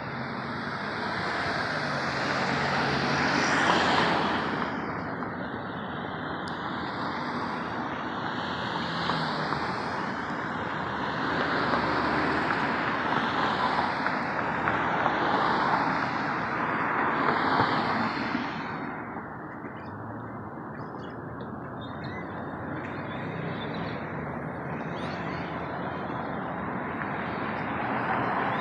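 Road traffic noise: a steady hiss of vehicles with cars passing by, swelling louder about four seconds in and again in the middle.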